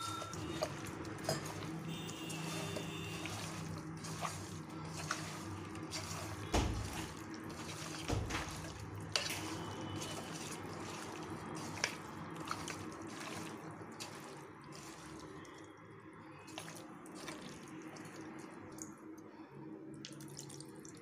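A hand mixing raw chicken pieces with spice powders, onion and tomato in a metal bowl: wet squishing and squelching with small irregular clicks, and two heavier thumps about six and eight seconds in.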